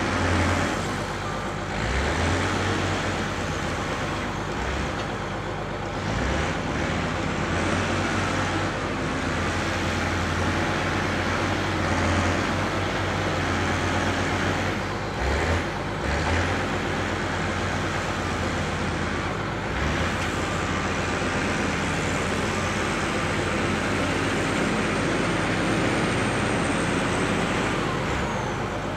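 Diesel engine of a Fiat-Allis 545B wheel loader running steadily under work, its level rising and dipping a little as the machine moves.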